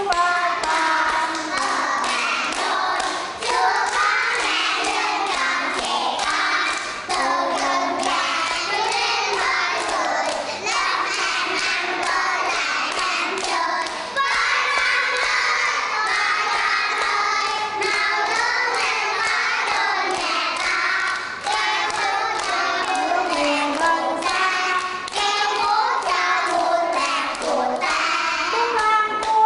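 A group of young children singing a song together in chorus, clapping their hands along with it.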